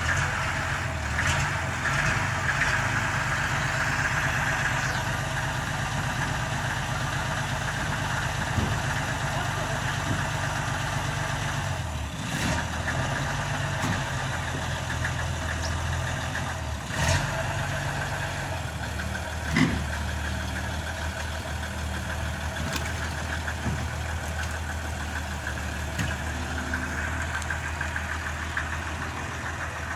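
Old flatbed truck's engine running slowly, pulling a wooden house on its bed and a trailing dolly, with a few sharp clacks. The engine note shifts lower about two-thirds of the way through.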